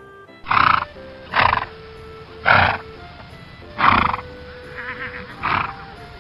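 A horse neighing in five short, loud calls about a second apart, with a fainter call between the last two, over background music.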